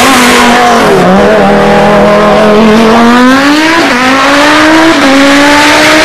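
Turbocharged 3643 cc Audi Quattro hillclimb race car passing close at full throttle and accelerating away. Its engine note climbs, then drops sharply at two quick upshifts about four and five seconds in.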